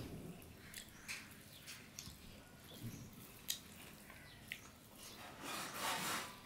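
A hand mixing rice and curry on a plate: faint squishing and rubbing with scattered small clicks of fingers against the plate, and a longer rubbing swell near the end.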